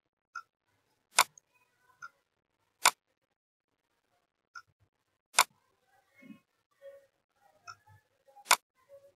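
Computer mouse clicking: four single sharp clicks, a couple of seconds apart, with the last one near the end.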